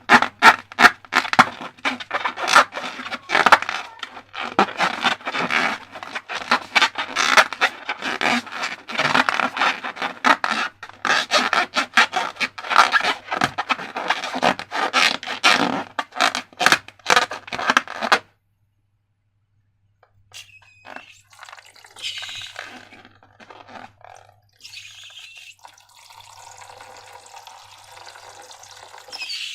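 Slime being worked by hand, a dense run of sticky, wet crackling and scraping that stops abruptly about two-thirds of the way through. After a short silence come softer, sparser wet slime sounds, ending in a steady soft rush of noise.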